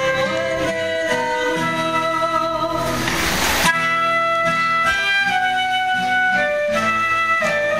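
Transverse flute playing a sustained, stepwise melody over Spanish classical guitar accompaniment, an instrumental passage without singing. A brief hiss cuts across the music about three seconds in.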